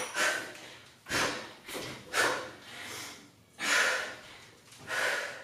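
A woman breathing hard from exertion during barbell power cleans: several forceful, noisy breaths in and out, each about half a second long.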